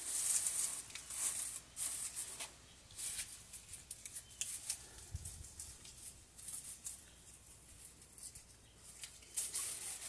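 Irregular dry rustling and crackling in short bursts, strongest in the first two seconds and again near the end.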